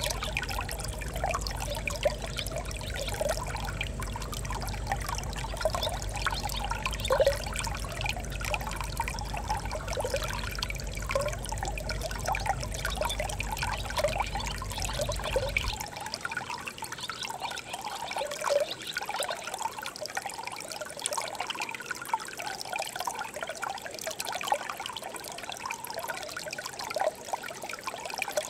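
Shallow stream trickling and babbling over stones, with many small bubbling plops in a steady flow. A low rumble underneath cuts off abruptly about halfway through.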